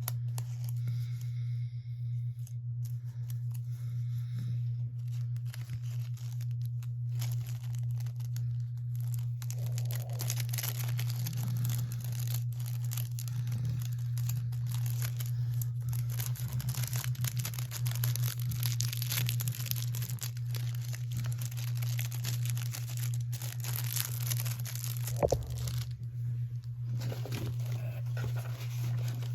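Paper and packaging rustling and crinkling as small paper items are handled and pulled from a kit, with a sharp knock about 25 seconds in, over a steady low hum.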